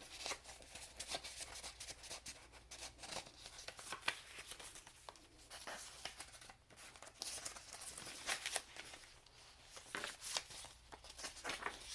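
Paper pages and tags of a handmade junk journal being turned and handled, with irregular soft rustles, crinkles and small taps.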